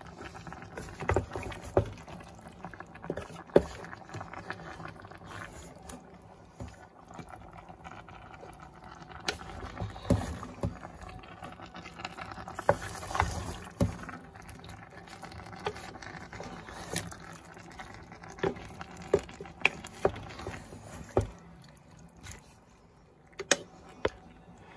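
Wooden spatula stirring chunks of chicken, potato and carrot in a pot of simmering broth: irregular knocks and scrapes against the pot, with the wet slosh of the stew.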